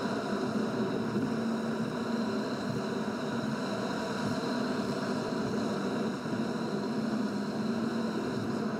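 A car's running noise heard inside the cabin, sped up six times: a steady hum with a few fixed high whining tones.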